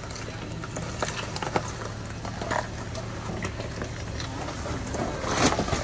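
Toyota 4Runner creeping along a rocky off-road trail: a low, steady engine hum under scattered clicks and knocks of stones under the tyres, with a louder crunch near the end.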